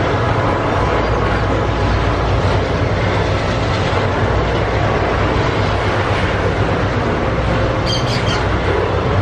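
Freight train of double-stack container well cars rolling past close by: a steady, loud rolling noise of steel wheels on the rails.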